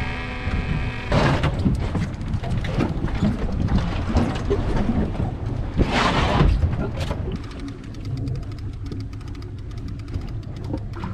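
Wind buffeting the microphone over the sound of open-ocean water slapping around a small boat, with two stronger gusts about one and six seconds in.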